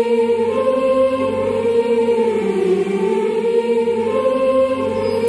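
Music with long held notes that step to a new pitch a few times, no words sung: a wordless interlude in a song setting of a Hindi poem.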